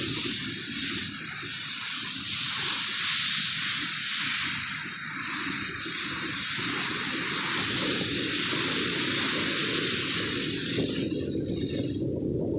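Steady rush of wind and sea water heard from the deck of a moving ship, with a low rumble underneath. The hiss thins out near the end.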